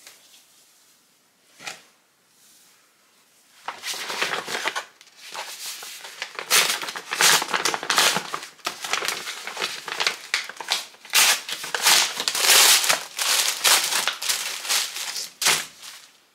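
Paper packaging crinkling and rustling as a garment is pulled out of a brown paper mailer and its wrapping. It starts about four seconds in as a dense run of crackles and stops near the end.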